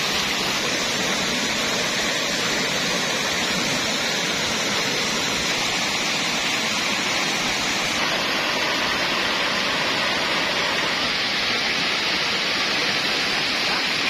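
Steady rushing of a jungle waterfall and the stream below it, with no break; its tone shifts slightly about halfway through.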